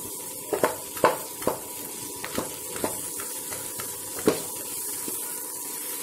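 A spatula knocking and scraping in a pan as it stirs and breaks up fried rohu fish heads in thick sizzling masala. There are about ten sharp knocks over a steady sizzle, the loudest about four seconds in.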